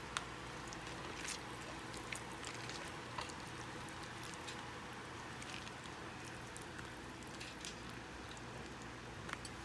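A bare hand kneading and squeezing chicken pieces in a thick, oily yogurt marinade in a bowl: faint, steady wet squishing with a few small clicks.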